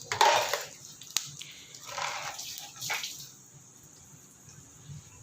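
Whole spices and dried red chillies being stirred in a hot oiled pan: a few scraping, rattling strokes of the spatula in the first three seconds with a sharp click about a second in, then quieter.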